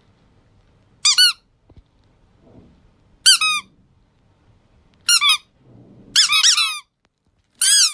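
Five short bursts of high-pitched squeaking, each a quick run of two to four rising-and-falling squeaks, spaced one to two seconds apart; the fourth burst is the longest.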